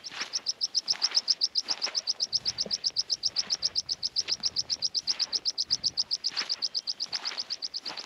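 A bird trilling: a long, even run of high chirps, about ten a second.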